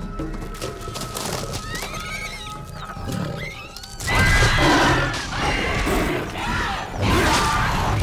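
Film creature cries over a music score: a few thin gliding calls at first, then about four seconds in it turns suddenly loud with repeated shrill, wavering, whinny-like screeches and rough crashing noise as the creatures attack.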